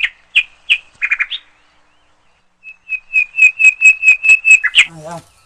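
A songbird calling loudly close by: a few scattered sharp chirps, then, after a short pause, a quick even run of the same steady-pitched chirp, about five a second for two seconds.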